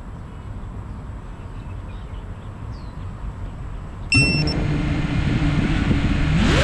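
Low outdoor background noise, then about four seconds in an FPV drone's motors start up with a brief high chirp and settle into a steady idle hum. Near the end the pitch rises as the motors throttle up for takeoff.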